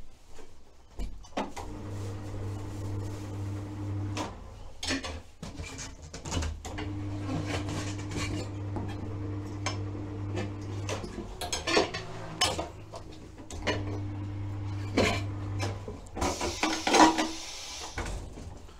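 Tyre-changer machine demounting a tyre from an alloy rim: its turntable motor hums steadily in three runs of a few seconds, while a steel tyre lever clanks against the rim. A short hiss of air comes near the end.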